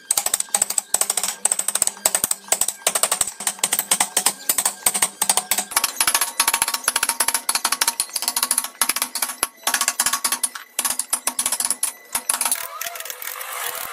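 Carving gouge being driven into a block of wood with rapid mallet blows, about four a second, chipping off wood with each cut.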